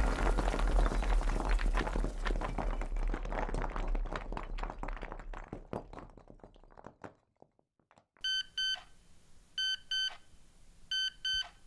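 A dense crackling noise, full of clicks, fades away over the first seven seconds. After a moment of near silence an electronic alarm beeps in quick pairs: three double beeps about a second and a half apart.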